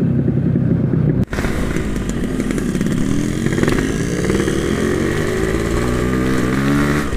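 Yamaha RX-King's two-stroke single-cylinder engine running as the bike is ridden, with a sudden brief dropout about a second in; afterwards the engine note climbs steadily as the bike accelerates, then holds high.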